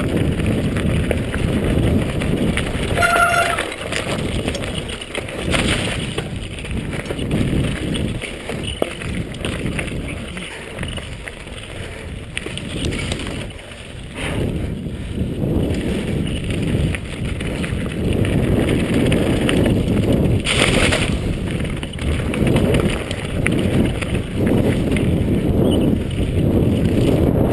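Mountain bike rumbling and rattling over a dirt singletrack descent, a dense, uneven low noise throughout. There is a short squeal about three seconds in and a brief hiss a little after twenty seconds.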